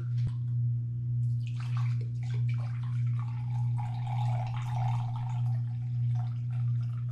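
Apple cider vinegar poured from a plastic jug into a glass measuring cup, the liquid splashing into the cup from about a second in. Under it, and louder, is a steady low hum.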